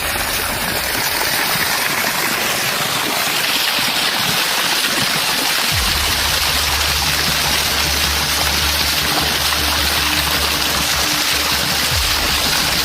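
Water gushing steadily out of a tree trunk, an even rushing splash with no break. A low steady tone joins underneath about six seconds in.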